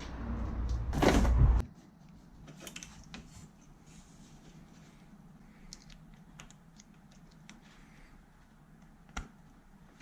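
A loud rushing noise for the first second and a half, which stops suddenly, then quiet scattered light clicks and rustles of hands working on wiring and connectors, with one sharper click near the end.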